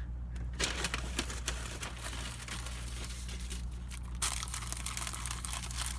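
Paper food wrapper crinkling and rustling as a fast-food taco is unwrapped, growing louder about four seconds in, over a steady low hum.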